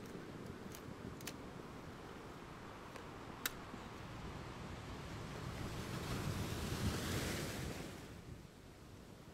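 Wind buffeting the microphone, rising in a gust about six seconds in and dying down near eight seconds, with a few faint clicks in the first four seconds.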